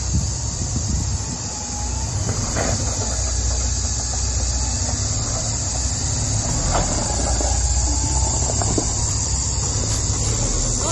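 Toyota LandCruiser 105 Series engine running low and steady as the truck crawls over a rutted dirt track, with a few short knocks and creaks from the suspension and body. A steady high-pitched cicada chorus carries underneath.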